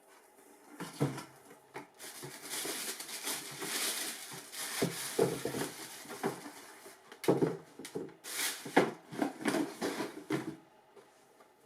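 Shoe box and its packaging being handled and opened: irregular rustling and crinkling with short knocks, stopping shortly before the end.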